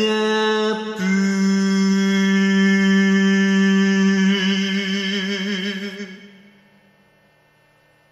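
A singer's long held final note, with a brief break about a second in, then steady and turning to vibrato, fading out about six to seven seconds in.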